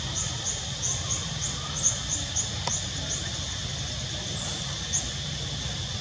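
Outdoor woodland ambience: a steady high drone with short, high chirps repeating about three times a second, thinning out to occasional chirps after the first half, over a low rumble.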